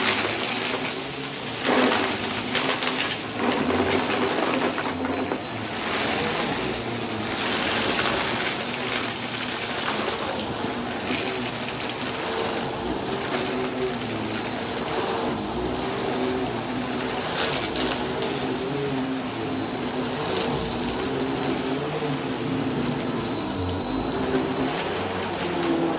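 Bissell vacuum cleaner running steadily with a thin high whine, crunching and crackling as it sucks up dry debris scattered on a rug.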